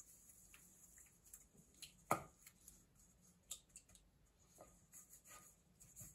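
Faint scattered taps and clicks of a utensil against a stainless steel bowl while Yamato nori rice-starch glue is stirred with water; the loudest tap comes about two seconds in.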